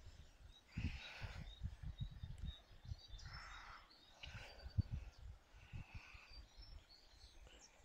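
Faint, scattered bird chirps over soft low bumps and rustles of handling noise as a small chub is held and unhooked by hand.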